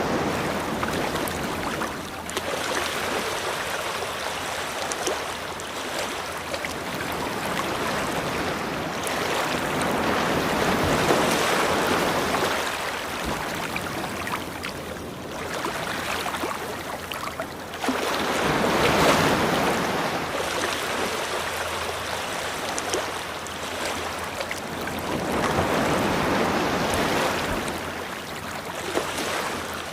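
Ocean surf washing onto a shore: a continuous rush of water that swells louder about every eight seconds as each wave breaks and draws back.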